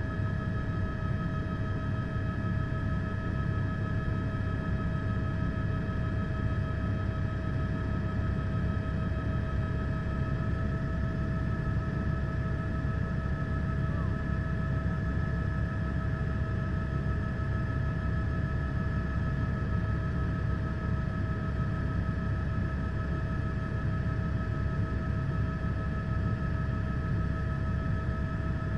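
Helicopter engine and rotor noise: a steady low rumble with a few constant whining tones above it.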